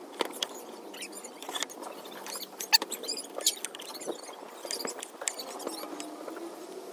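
Knife slicing through a grilled steak's seared crust and tapping the wooden cutting board: a string of irregular sharp clicks and ticks, the loudest about three seconds in.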